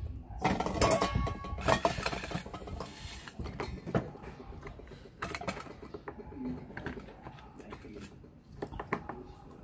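Raw oyster shells clattering against a stainless steel bowl, then an oyster knife prying and scraping at a shell: short clicks, knocks and scrapes, thickest in the first two seconds and sparser after.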